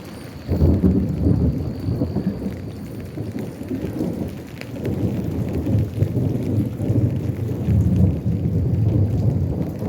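Thunder in a rainstorm: a long rolling peal breaks in sharply about half a second in and keeps rumbling unevenly, over falling rain.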